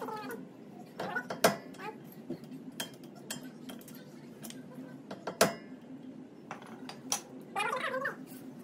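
Hammer striking a steel chisel held against the axle nut at a wheel hub, staking the nut into the axle's groove to lock it. Two hard metallic strikes about four seconds apart, with lighter taps and clinks of metal tools around them.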